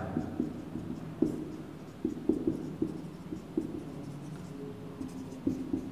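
Marker pen writing on a whiteboard: short strokes and taps at uneven intervals as words are written out.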